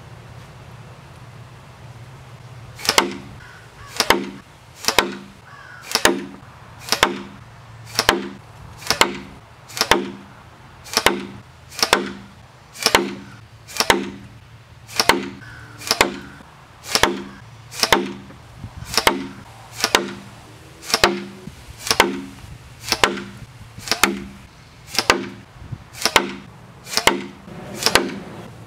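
FSFF 625-bore Whisper Razor blowgun dart striking a wooden board target over and over, a sharp thwack with a short ring about once a second, beginning about three seconds in.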